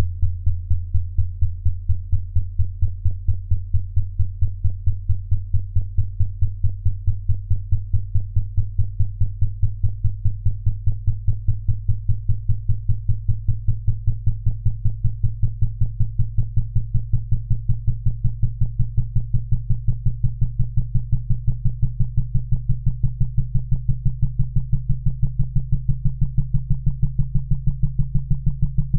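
Low synthesized hearing-test tone pulsing about four times a second, its pitch creeping slowly upward.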